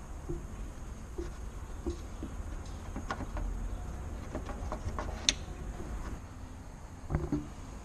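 Light plastic clicks and rattles as the bulb holder and housing of a car's side marker lamp are handled and pressed together, with one sharp click about five seconds in, over a low steady hum.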